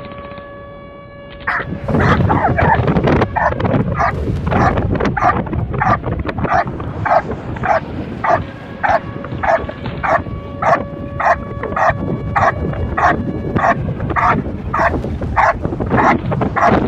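Belgian Malinois barking steadily and insistently at a helper standing by a blind, about two barks a second, starting about a second and a half in: the hold-and-bark of protection work.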